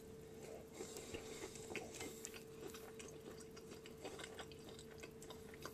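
Faint chewing of a bite of overdone grilled cheese sandwich: soft crunches and small mouth clicks scattered through, over a faint steady hum.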